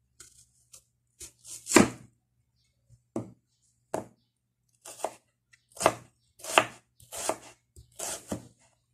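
Kitchen knife cutting through a peeled onion and striking a wooden cutting board: about ten irregular strokes, the loudest about two seconds in.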